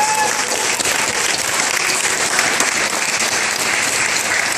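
An audience of guests applauding, a steady round of clapping.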